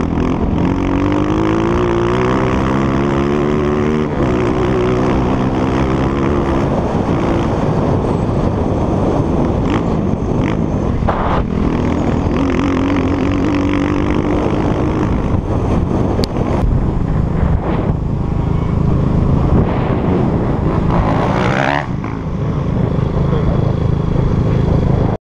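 Dirt bike engine accelerating as it rides, its pitch climbing and dropping back at gear changes, with a sharp rev near the end, under heavy wind buffeting on the microphone.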